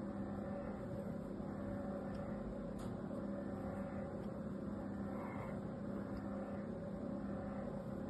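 A pointed craft knife scoring lines into a bar of dry soap: faint, soft scraping strokes over a steady low hum.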